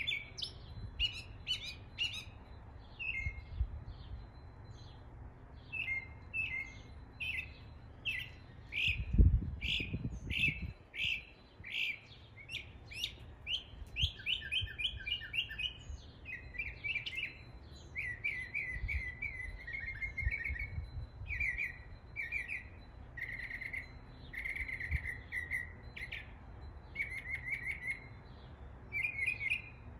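Northern mockingbird singing a continuous run of short, varied phrases, each repeated several times, imitating the calls of other birds. A brief low rumble about nine seconds in.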